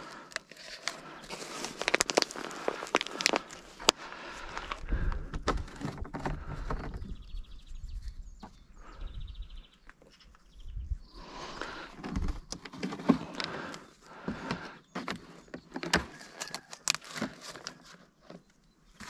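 Irregular knocks, clicks and scraping of plastic oil containers being handled and set down while engine oil is decanted from a 20-litre jerrycan into smaller containers.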